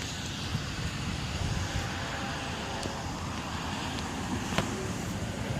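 Steady road traffic noise with a low rumble, broken by a few faint short clicks.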